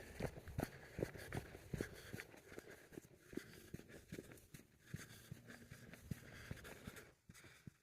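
Footsteps on a dirt and rock trail, a steady stride of about two to three steps a second, growing fainter after a few seconds.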